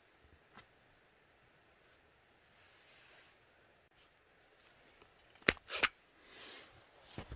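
Quiet background, then about five and a half seconds in, two sharp clacks close together as the camera is picked up and handled, followed by a brief rustle and a few soft knocks of handling and footsteps.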